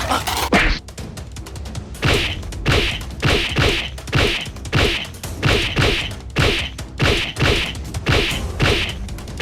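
A steady rhythm of thuds, about two a second, each with a sharp smack on top, starting about two seconds in.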